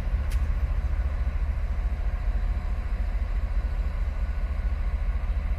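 Low, steady rumble of a distant diesel locomotive running, with a faint steady hum above it and one brief click about a third of a second in.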